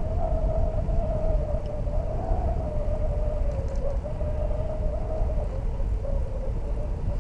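Bicycle rolling along a paved trail: a steady low rumble of wind and road noise on the microphone, with a steady hum that wavers slightly in pitch.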